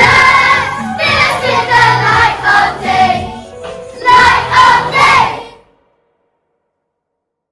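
Children's choir singing with musical accompaniment, the closing phrases of the song, then the sound cuts off abruptly about three-quarters of the way through.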